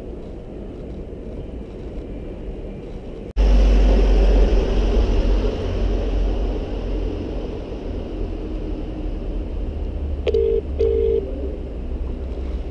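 A loud low rumble of street noise starts suddenly about three seconds in. Near the end a phone's ringing tone sounds once as a quick double ring through the phone's speaker: a British ringback while the call waits to be answered.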